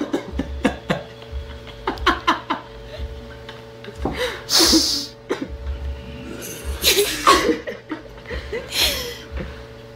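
Giggling and breathy laughter in short separate bursts, with sharp exhalations between them.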